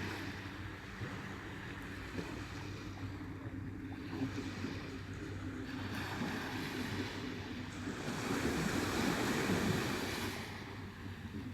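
Surf washing onto a beach, the waves swelling and falling back, with one louder surge near the end, and wind buffeting the microphone. A faint low steady hum runs underneath.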